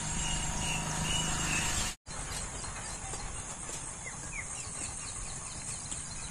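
Outdoor rural ambience: a steady high insect drone with birds chirping, a quick run of repeated chirps in the first two seconds and a few short chirps later. The sound drops out for a moment about two seconds in.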